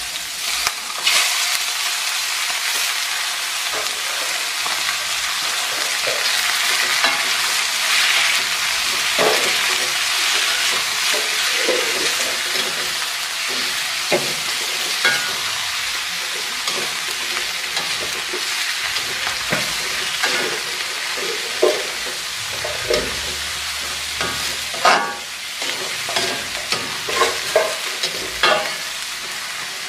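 Fresh squid with green chillies and shallots sizzling in hot oil in a metal wok, stirred with a spatula that scrapes and knocks against the pan. The sizzle swells about a second in, and the spatula knocks come thicker near the end.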